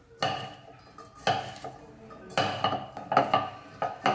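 A hand tossing shredded raw vegetables in a stainless steel pot, five strokes about a second apart, each a rustle of cabbage and carrot strips with a light metallic ring from the pot.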